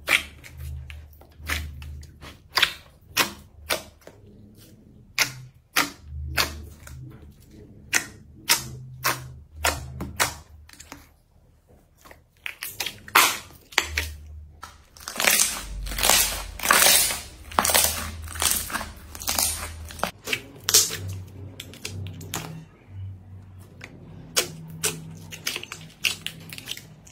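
Slime being squeezed and pressed by hand, giving irregular sharp clicks and pops, with a denser run of crackling about halfway through.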